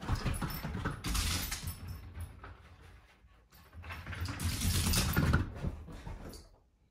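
Pets running on a hardwood floor: rapid paw thumps and claw clicks and scrabbling, in two bursts, the second as a terrier gallops down the hallway.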